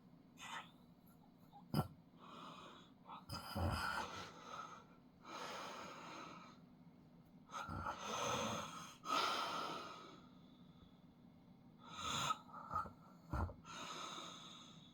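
A man snoring in his sleep: about six uneven, noisy breaths with a few short, sharp snorts among them.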